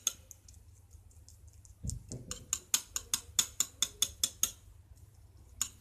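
Metal fork and spoon clicking against a porcelain plate while scraping the fringe of fin bones off a cooked sole. About a dozen sharp clicks come at roughly four a second in the middle, with a single click near the end.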